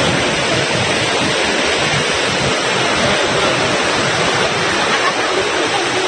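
A waterfall's water pouring down in a loud, steady, unbroken rush.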